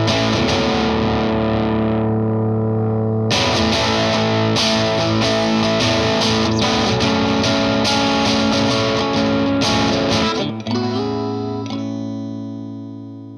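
Electric guitar, a Fender Custom Shop '57 Stratocaster, played through an MXR Duke of Tone pedal in boost mode into a slightly driven Vox AC15 amp: chords and riffs, ending on a chord left to ring and fade over the last few seconds.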